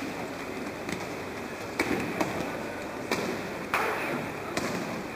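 About five sharp thuds of falls and slaps on a judo-style mat, spaced irregularly over a few seconds, above steady background noise.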